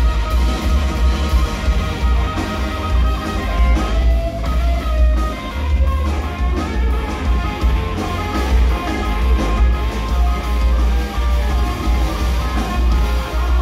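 Live soul-jazz organ trio playing: Hammond B-3 organ with a heavy bass line, electric guitar and drum kit together in a steady groove.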